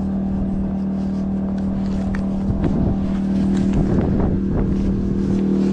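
An engine running steadily as a constant low hum, with a patch of crackling noise about halfway through.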